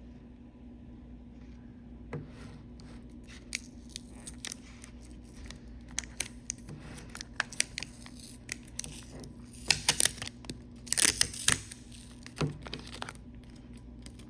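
Food packaging being handled: scattered clicks and crinkling, with a louder burst of tearing and crinkling about ten to eleven seconds in.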